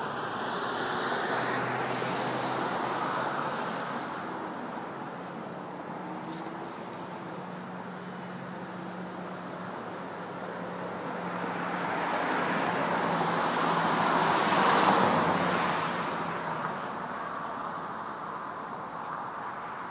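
Road traffic: cars passing by, one swelling past about two seconds in and a louder one rising and fading around fifteen seconds in, over a faint steady hum.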